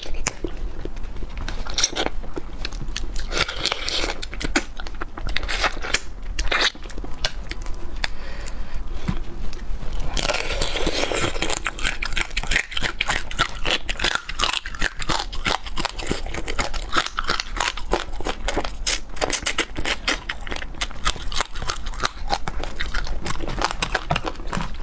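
Close-up crunching and chewing of raw marinated small crabs, the thin shells cracking between the teeth in many sharp crackles, with a louder, denser stretch of crunching about ten seconds in.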